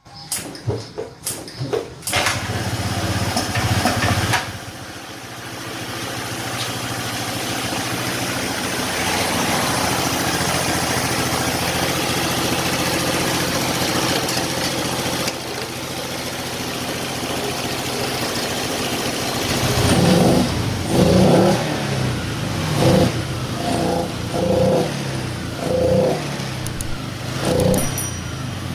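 Honda Vario Techno 125 scooter's single-cylinder fuel-injected engine being started and settling into a steady idle, then blipped with short throttle openings about eight times near the end. On opening the throttle it bogs and runs rough, a lean, fuel-starved symptom that the mechanic suspects comes from a weak fuel pump.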